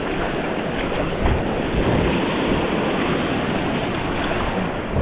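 Ocean surf washing onto the beach, steady throughout, with wind rumbling on the microphone.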